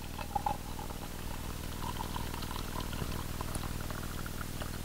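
Freshly pressed coffee pouring from a GSI JavaPress french press into a mug, a thin stream splashing into the liquid, over a steady low hum.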